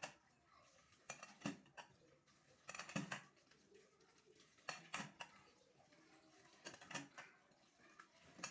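Plates being washed by hand in a stainless-steel sink, clattering and knocking in short bursts every second or two, over faint running tap water.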